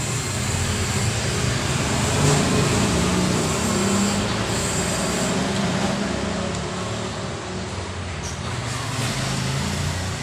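Steady road-traffic noise, with the low hum of motor-vehicle engines rising and easing.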